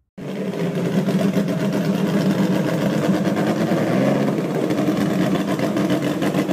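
1964 Ferrari 275 GTB/C Speciale's V12 engine idling steadily with a fast, even beat.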